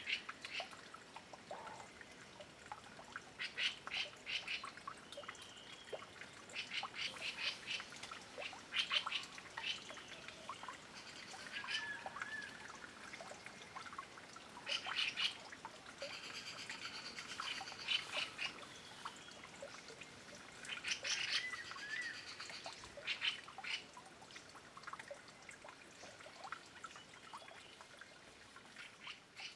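Taiwan scimitar babblers bathing in a trickling stream: bursts of quick splashing and wing-fluttering every few seconds, with short bird calls between.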